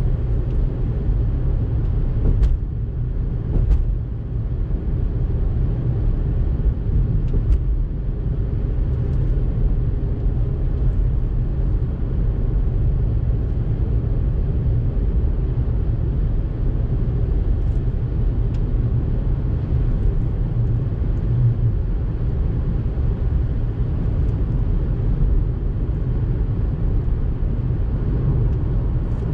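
Car interior driving noise: a steady low rumble of tyres and engine heard from inside the cabin while cruising on a paved road, with a few faint ticks.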